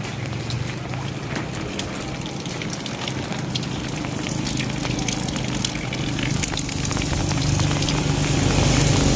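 Heavy rain falling, with many close drop impacts, and a low hum that grows louder over the last few seconds.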